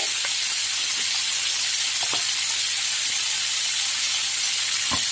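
Cubed raw chicken frying in hot oil in a frying pan, a steady high sizzle, with a few faint clicks.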